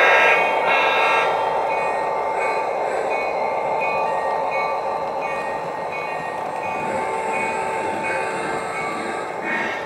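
Lionel Santa Fe El Capitan O-gauge model train running past on its track: a steady rumble of motor and wheels, with a horn sounding at the start and a thin ringing tone repeating about twice a second.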